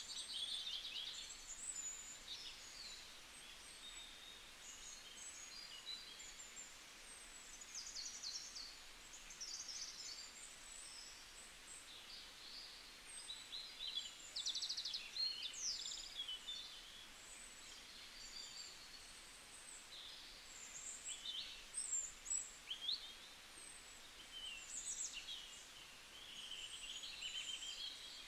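Faint birdsong: many small birds chirping and trilling, in short irregular phrases over a steady low hiss.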